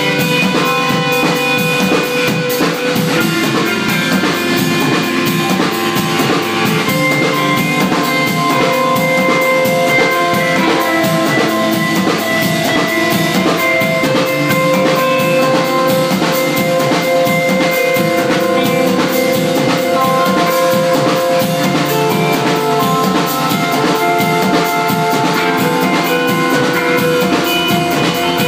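Instrumental math-rock band playing live: a drum kit and electric guitars through amplifiers, with held, ringing guitar notes over steady drumming.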